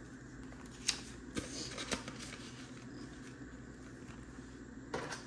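Paper bills and envelopes being handled as cash is stuffed: a few short crisp rustles about a second in and near the end.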